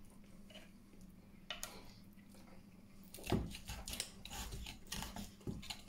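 Bare hands tearing a roast pheasant apart on a wooden board, wrenching a leg from the carcass. There are a few faint crackles, then from about three seconds in a run of soft, irregular tearing and handling sounds.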